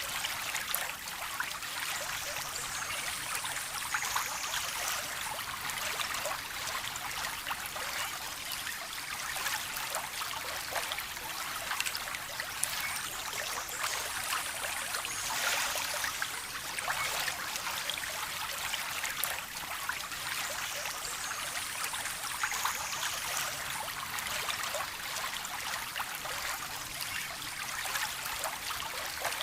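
A small stream trickling and babbling over stones, a steady splashing with many small drips and plinks.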